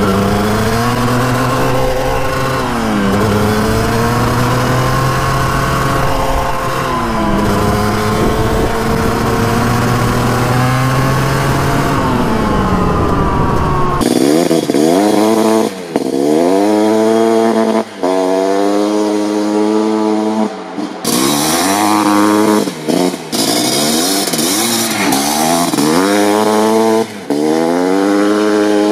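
Two-stroke sport quad engine revving hard under throttle, its pitch climbing and dropping at each gear change. In the second half the revs come in quicker rises and falls, with brief drops in loudness between them as the throttle is let off.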